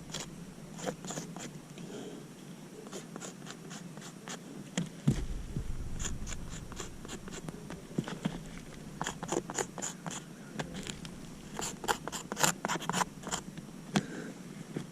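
Irregular sharp clicks and light scrapes, bunched in quick clusters in the second half, with a single low thump about five seconds in.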